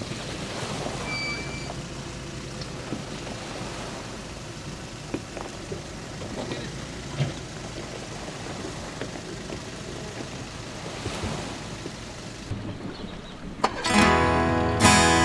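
A steady background noise with a few scattered knocks, then acoustic guitar music starts loudly near the end.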